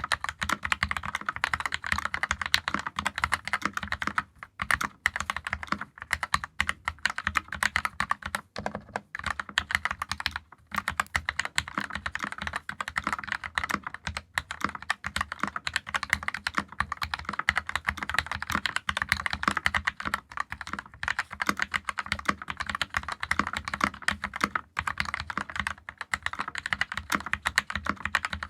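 Steady, fast typing on a 60% mechanical keyboard with Keyfirst Cream linear switches, lubed with Krytox 205g0 and filmed, on a brass plate in a plastic case with GMK keycaps: a dense run of key clicks and bottom-out thocks, with a few short pauses about 4 and 10 seconds in.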